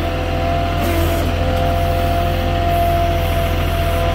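Moffett truck-mounted forklift's diesel engine running steadily under a pallet of retaining wall blocks as the forklift edges forward, with a steady whine on top.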